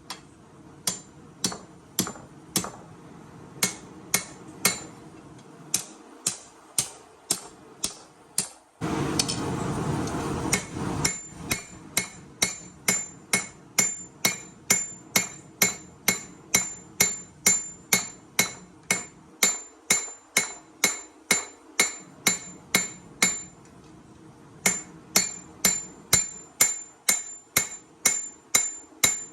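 Forging hammer striking steel on an anvil in a steady rhythm, about two to three blows a second, each with a high ring. About nine seconds in, the blows stop for a two-second rush of noise, and there is a brief pause in the hammering near the end.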